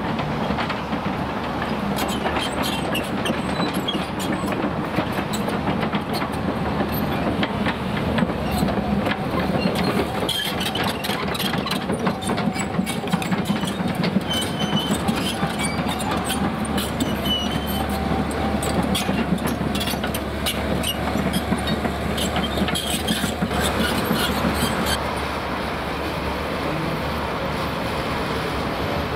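Diesel excavator working on demolition: the engine runs steadily under a continual clatter of knocks and cracks from rubble and debris, with a whine in the middle stretch. The clatter thins out near the end.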